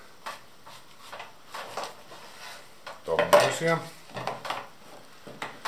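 Chef's knife slicing a courgette lengthwise into long strips on a wooden cutting board: scattered light taps and clicks of the blade against the board, with a louder clatter a little after three seconds in as the knife is set down.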